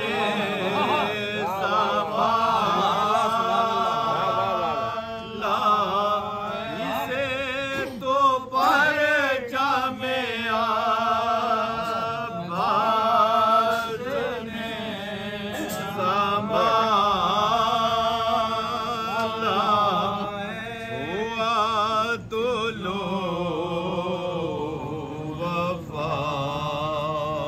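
Men's voices chanting an Urdu soz, the Muharram elegy: a lead reciter with backing voices sings long wavering melodic phrases, unaccompanied, with short breaths between lines.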